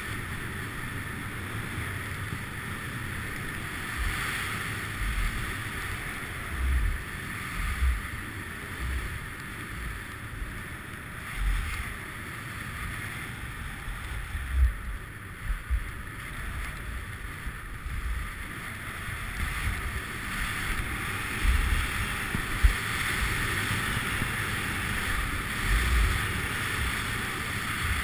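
Wind rushing over the microphone of a camera carried by a downhill skier, with low gusty buffeting, over a steady hiss of skis sliding on snow.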